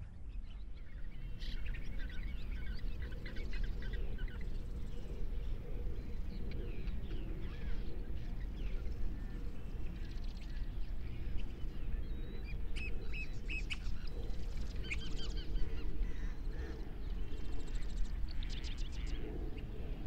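Many birds calling in short, overlapping chirps and calls over a low steady rumble.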